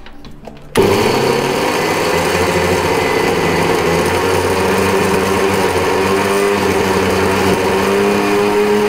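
Electric mixer grinder switching on about a second in and running steadily, its motor and blades coarsely grinding soaked chana dal in the steel jar.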